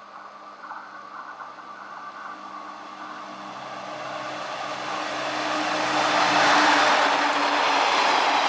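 Anpanman Torokko diesel train approaching and passing close by: a steady engine hum under a growing rush of wheels on rail, loudest about six to seven seconds in as it goes past, the engine note dropping slightly in pitch as it passes.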